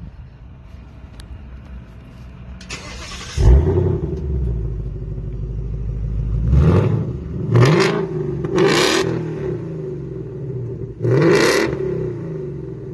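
2018 Ford Mustang GT's 5.0 Coyote V8, with the center resonator deleted for an X-pipe and stock mufflers, starting with a brief crank and a loud flare about three seconds in, settling into a fast idle, then revved in four quick throttle blips.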